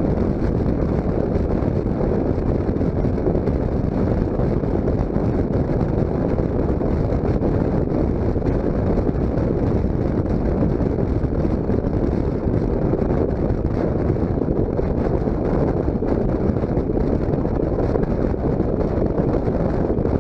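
Steady rush of wind on the microphone of a motorcycle riding at speed in sixth gear, with engine and road noise blended underneath. The level holds even with no sudden sounds.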